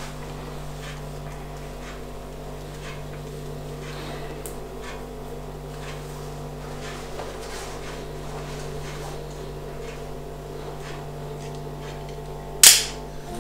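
Steady low electrical hum of room tone with a few faint soft ticks, then one sharp, loud click near the end.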